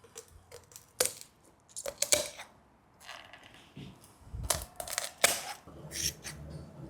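Kitchen shears snipping and crunching through a raw chicken's backbone: a string of irregular sharp crunches and clicks as the bone is cut.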